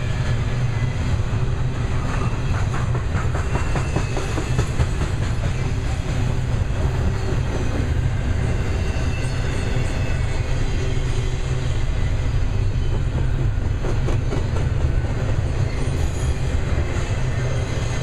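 Double-stack intermodal well cars rolling past at speed: a steady low rumble of steel wheels on rail, with the clickety-clack of wheels passing over rail joints.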